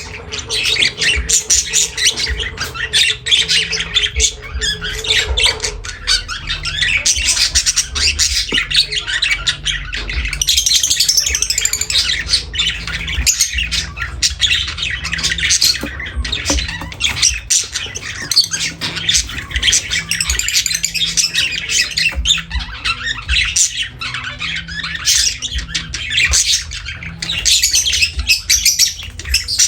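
A group of lovebirds calling continuously, a dense, rapid run of shrill high-pitched chirps and squawks with no pause.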